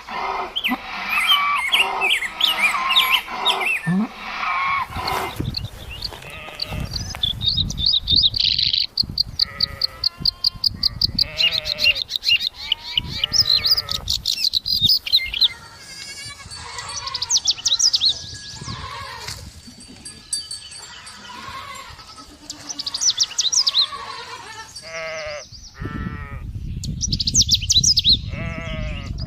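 A sequence of farm animal calls, with bleating livestock and high bird chirps, including a run of quick repeated calls in the middle.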